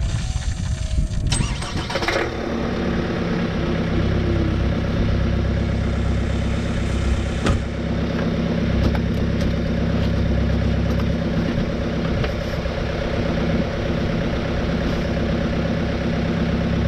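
2018 Chevy Cruze's 1.6 L turbo-diesel four-cylinder cranking on the starter for about two seconds, then catching and settling into a steady idle, heard from beneath the car. This is the first start after a fuel filter change and fuel-system priming.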